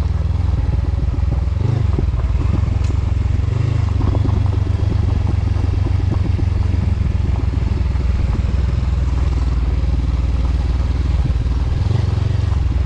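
Honda CB500X motorcycle's parallel-twin engine running steadily on a dirt trail.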